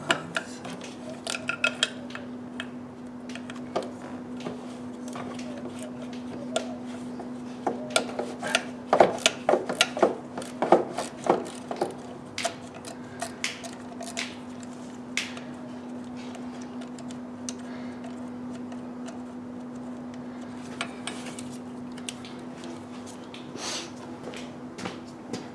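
A socket ratchet clicking in quick even strokes for the first second or two, then scattered metal clinks and knocks of hand tools and parts being handled, thickest in the middle, over a steady low hum.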